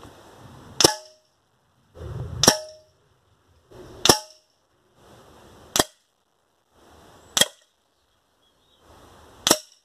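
Six air rifle shots, each a sharp crack with the pellet striking a steel pellet catcher whose edges are lined with plumber's putty to deaden it, about one and a half to two seconds apart. The first two hits leave a brief metallic ring.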